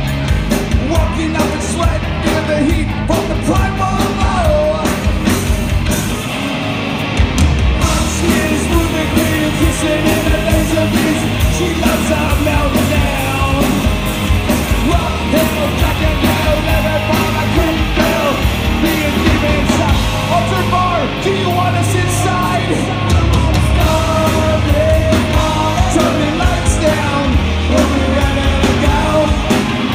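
A rock band playing loud live music, with a singer shouting and singing over the drums and instruments.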